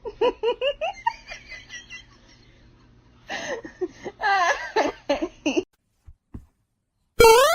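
High-pitched laughter in quick repeated bursts, which pauses and starts up again before cutting off abruptly. A short rising tone sounds near the end.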